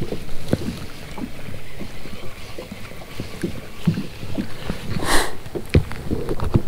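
Small waves lapping and slapping against a kayak's hull, with scattered light knocks. A short hiss comes about five seconds in, followed by a sharp click.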